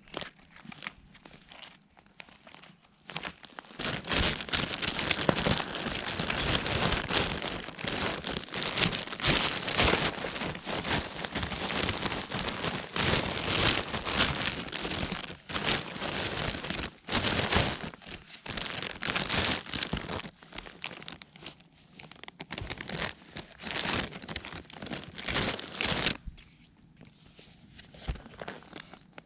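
Loud, dense crackling and rustling noise close to the microphone, starting about four seconds in and dropping away a few seconds before the end.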